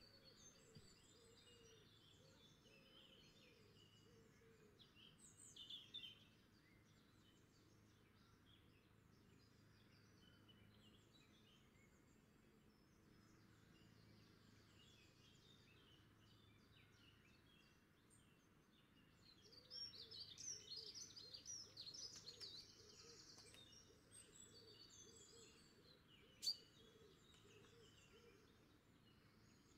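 Near silence with faint scattered bird chirps, busier about twenty seconds in, and one sharp click near the end.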